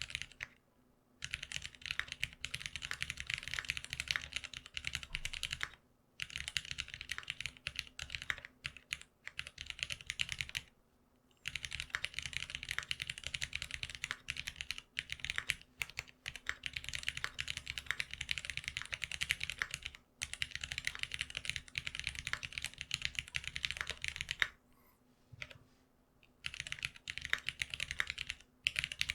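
Fast typing on a GeonWorks F1-8X custom mechanical keyboard fitted with lubed Cherry Black linear switches and long springs, in runs of rapid key clacks broken by brief pauses.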